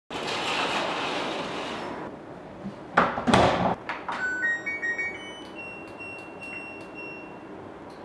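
LG Direct Drive washer-dryer's control panel powering on with a short rising run of electronic beeps, followed by further button beeps as settings are chosen. Before it, a noisy rush for about two seconds and a loud clattering knock about three seconds in.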